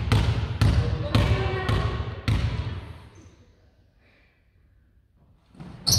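A basketball bounced on a wooden gym floor by a player at the free-throw line before her shot: about five bounces, a little over half a second apart. This is followed by a couple of seconds of near quiet, then a sudden loud burst of sound just before the end.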